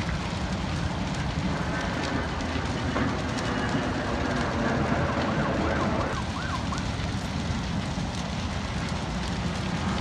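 A distant emergency-vehicle siren wailing faintly from about a second and a half in, breaking into quick up-and-down yelps about six seconds in. It sounds over a steady low rumble.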